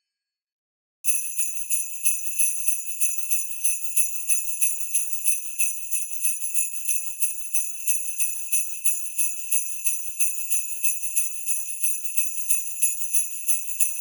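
Jingle bells shaken in a steady rhythm, about three to four shakes a second, starting after a second of silence.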